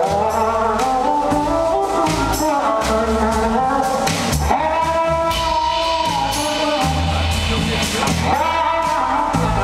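Live blues-rock band playing, led by an electric slide guitar on a red Gibson SG whose long held notes glide up into pitch, over bass and drums.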